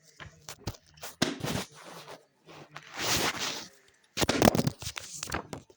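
Handling noise: irregular rustles and sharp clicks of objects being moved about, loudest about four seconds in.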